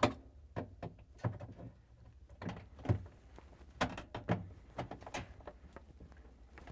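Irregular clicks and knocks of pliers working a metal retaining strip at the refrigerator's evaporator coil, bending it straight to free the defrost heater.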